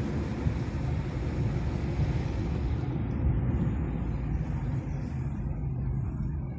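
Car engine and road noise heard from inside the cabin while driving along a city street: a steady low rumble, with the higher hiss dying away about halfway through.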